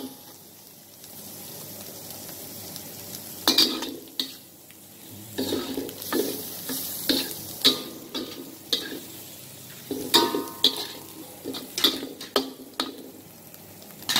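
Metal spatula scraping and knocking against a steel wok while chicken, shrimp, meatball slices and egg are stir-fried, over a steady sizzle. The first few seconds hold only the sizzle; then the strikes come irregularly, about one or two a second, bunching together a little past the middle.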